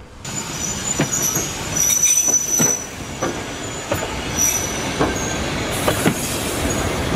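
A train rolling slowly on the track, its wheels squealing in high, wavering tones against the rails, with sharp clacks about once a second as the wheels pass over rail joints.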